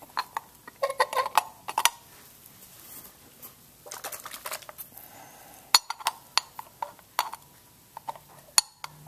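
Glass tail-light lens clinking and tapping against its housing as it is handled and fitted: a scatter of light, sharp clicks, with two sharper ones in the second half.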